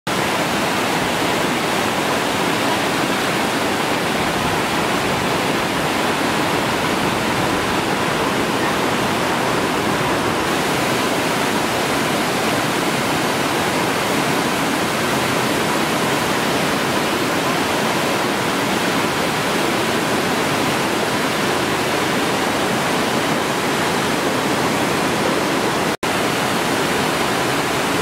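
Waterfall rushing steadily, water pouring over a weir and cascading down a rocky gorge. The sound drops out for an instant about two seconds before the end.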